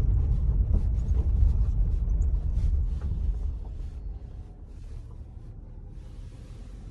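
Low rumble of wind on the microphone, strongest for the first three seconds and then dying down, leaving a faint hiss.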